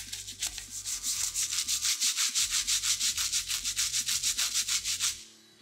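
Stiff-bristled hand brush scrubbing degreaser over the cast iron frame of a John Heine 182A fly press, in rapid back-and-forth strokes several a second, stopping about five seconds in.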